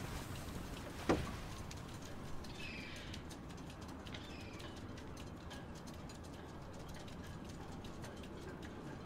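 Faint outdoor background with a few short bird chirps. A single sharp knock about a second in, and scattered faint ticks later on.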